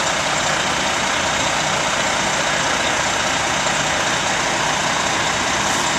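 Fire engine's diesel engine running steadily while it pumps water into the hose lines, a constant loud mechanical drone with a low hum underneath.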